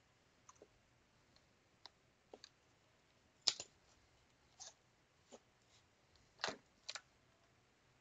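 Scattered light clicks and taps of small plastic parts and tools being handled, the loudest about halfway through.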